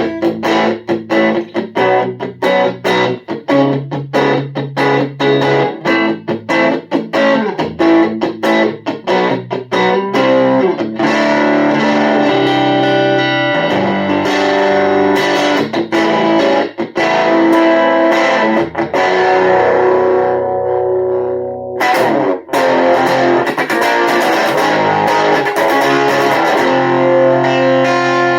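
Electric guitar played through distortion and effects. It starts with quick, choppy picked notes, and after about ten seconds moves to longer, sustained notes and chords.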